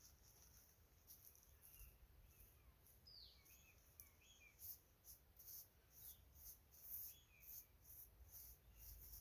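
Near silence: faint forest ambience with a few bird calls, one a falling whistle about three seconds in, and a faint high pulsing about twice a second that becomes clearer in the second half.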